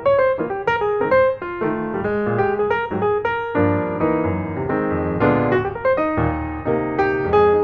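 Background piano music: a run of quickly struck notes, with fuller chords from about halfway through.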